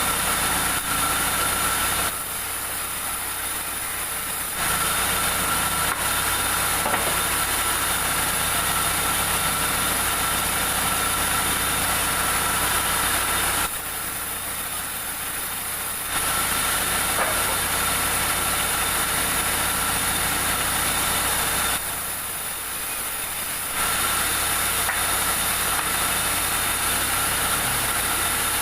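Sawmill machinery running with a steady engine-like drone. It drops in level three times, for about two seconds each.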